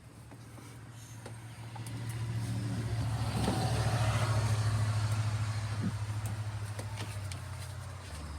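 A man snoring: one long, deep, rattling drone that swells to its loudest about halfway, then eases off and drops lower near the end.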